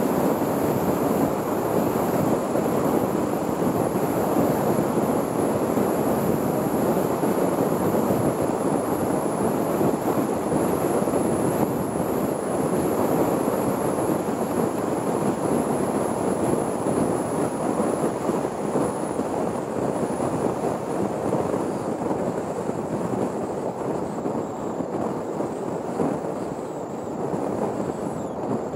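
Wind rushing over a camera mounted on the outside of a car driving at highway speed, mixed with tyre and road noise: a steady, loud rush that eases slightly near the end.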